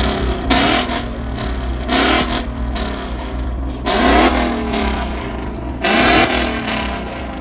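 Ford Mustang GT's 5.0-litre V8 revved while stationary, blipped four times about two seconds apart, each rev rising and falling back to idle between.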